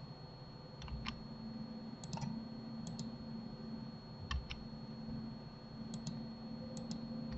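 Computer mouse and keyboard clicks, mostly in quick pairs, about six small groups spaced a second or so apart, over a faint steady hum from the computer.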